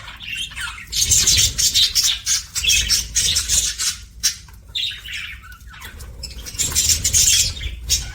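Budgerigars chirping and chattering in quick, dense bursts, in two busy spells with a quieter stretch between them.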